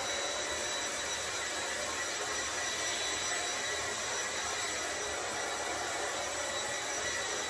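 Blow dryer switching on and running steadily, drying a freshly bathed dog's wet coat: an even rush of air with a thin high whine.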